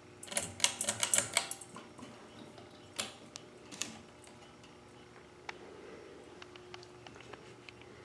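Pull chain of an Emerson Builder ceiling fan being tugged: a quick run of clicks and chain rattle in the first two seconds, then two single sharp clicks about three and four seconds in. After that the fan's motor starts up with a faint steady hum and a few light ticks.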